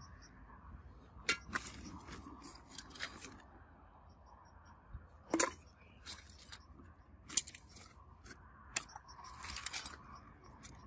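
Hands handling small hard objects, making scattered sharp clicks and taps, and rustling a woven plastic sack near the end.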